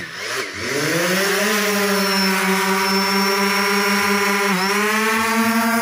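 DJI Phantom 4 quadcopter's motors and propellers spinning up and lifting off: a steady pitched buzz that rises over the first second or so, dips briefly about four and a half seconds in, then settles a little higher.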